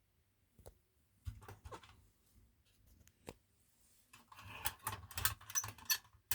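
Light metallic clicking and rattling of a tin toy bulldozer, in two irregular clusters: one about a second in and a busier one from about four seconds in.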